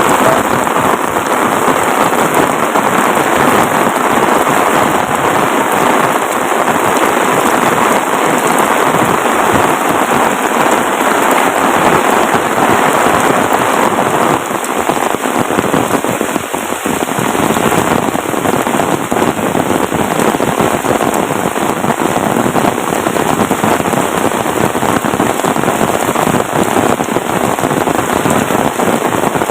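Heavy rain falling steadily, a dense, unbroken patter of drops.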